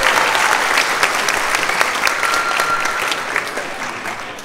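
Audience applauding, dense clapping that fades toward the end, with one held high tone about two seconds in.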